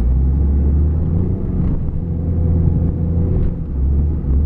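Lifted Jeep's engine running steadily while driving, heard from inside the cabin as a loud, low drone, dipping slightly near the end.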